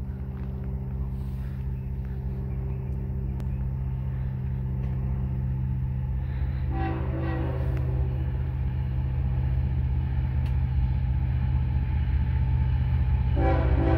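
An approaching diesel locomotive runs as a low, steady rumble that grows gradually louder. Its air horn sounds for over a second about halfway through and again near the end.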